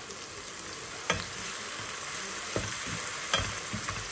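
Spiced tomato masala sizzling in hot oil in a pan as it is stirred, with a few short clicks of the stirring utensil against the pan.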